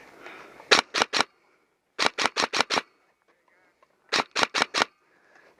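Airsoft gun firing in three short bursts of sharp rapid shots, about five a second: three shots, then five, then five.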